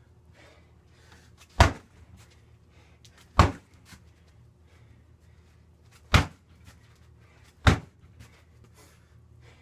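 Strikes landing on a free-standing punching bag: four hard, sharp hits, one every one and a half to three seconds, with faint light taps between them.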